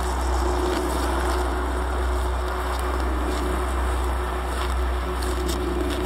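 Steady dark-ambient drone: a low hum with a few held tones and a noisy hiss over it, unchanging throughout.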